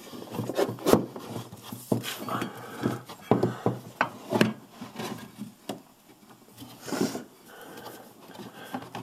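Snowmobile drive belt being worked off the spread secondary clutch by hand: the rubber belt rubs and scrapes against the metal sheaves, with a string of irregular knocks and clicks.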